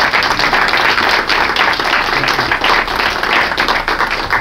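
Audience applauding: a dense run of clapping that thins to a few scattered claps near the end.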